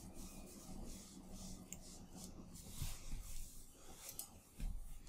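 Faint room tone with a steady low hum, a few soft computer-mouse clicks and light desk rustling, and a low thump near the end.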